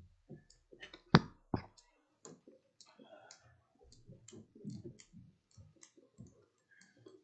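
Soft footsteps and scattered light clicks and knocks in a meeting room, with two sharper knocks a little over a second in.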